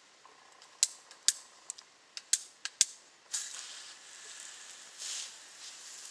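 About seven sharp clicks and knocks of hard objects being handled in the first three seconds, then a softer scraping rustle that swells twice.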